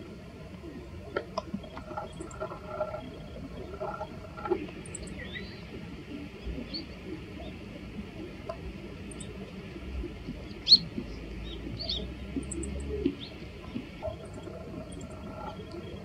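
Meadow bunting giving its short, high 'chi-chi-chit' call notes, in twos and threes every second or two, with one louder sharp call about two-thirds of the way in.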